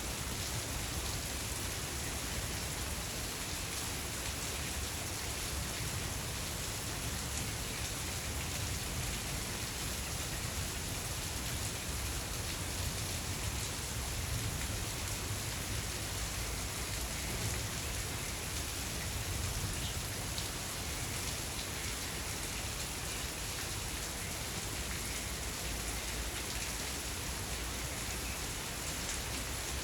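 Steady rain falling: an even hiss with a low rumble underneath and faint scattered drop ticks. It keeps a constant level throughout.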